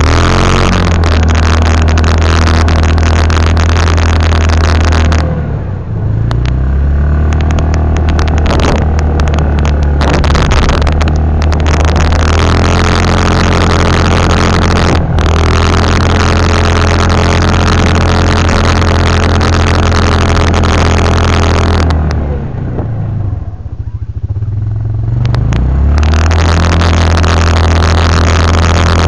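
Yamaha Rhino side-by-side's single-cylinder engine held at high revs while spinning donuts on snow. The revs drop and climb back up about six seconds in, and again for a few seconds about three-quarters of the way through.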